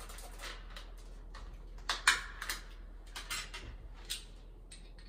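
Light clicks and taps of a switch cover plate and its screws being handled and set down, about half a dozen, the sharpest about two seconds in.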